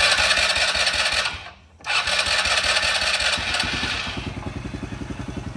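Freshly rebuilt Polaris RZR 170 single-cylinder engine being started on full choke: a loud burst of cranking, a short break about a second and a half in, then a second try on which it catches and settles into a steady, even idle.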